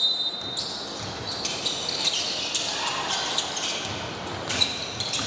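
Women's basketball game on a wooden gym floor: sneakers squeaking and the ball bouncing as players move, in a large hall. A short high tone fades out in the first half second.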